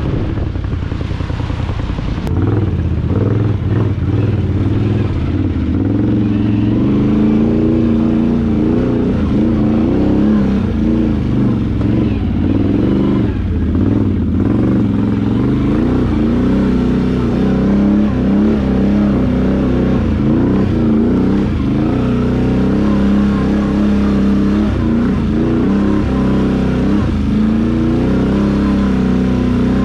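ATV engine running under constantly changing throttle, its pitch rising and falling as the quad picks its way over rocks and mud.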